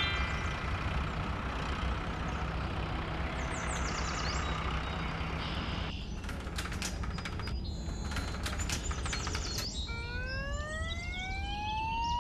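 Cartoon vehicle sound effects: a truck engine running steadily, then a clicking, rattling roller garage door from about six seconds in. Near the end a siren starts to wind up, rising in pitch.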